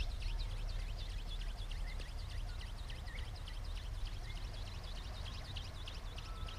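Wind rumbling on the microphone, under a steady chorus of small birds giving many short, high, downward chirps several times a second.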